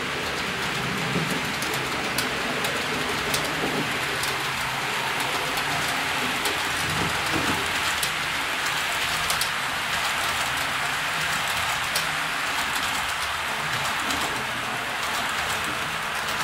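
H0-scale (1:87) model passenger train running past: a steady rushing rattle of wheels on track with sharp clicks scattered through it and a low hum underneath.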